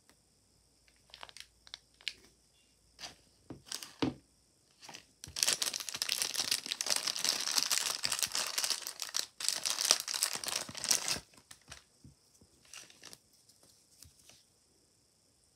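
Thin clear plastic bag being torn open and unwrapped by hand. First come a few short crinkles, then about six seconds of dense crinkling and tearing with a brief break in the middle, then a few small rustles.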